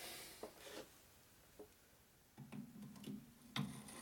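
Quiet tool handling: light metallic clicks and taps as an external hone is fitted onto a workpiece in a lathe, with one sharper click near the end. A low hum comes in about halfway through.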